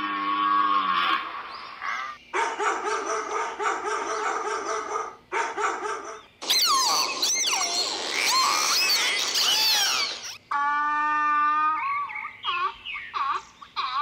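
A string of separate animal calls, one after another. The loudest is a few seconds in the middle of dolphins whistling and squeaking in quick rising and falling glides.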